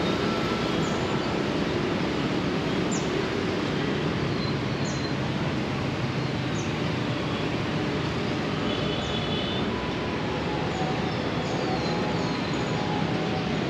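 Steady city background rumble with a bird chirping on and off, short high notes sliding downward every second or two.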